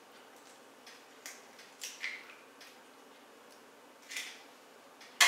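Faint, scattered clicks and small taps of an egg being cracked open and its shell pulled apart over a bowl, with one sharp click near the end.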